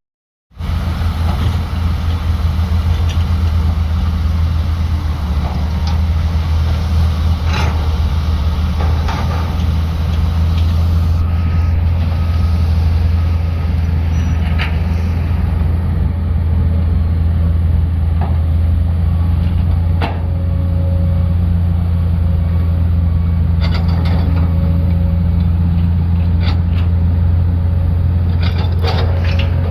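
Excavator's diesel engine running steadily with a deep drone, with a few sharp metallic knocks and clanks from the machine now and then.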